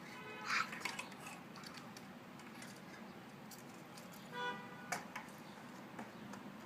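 Plastic LEGO pieces clicking and rattling as the built model is handled, with two brief squeaky tones, about half a second in and past the middle.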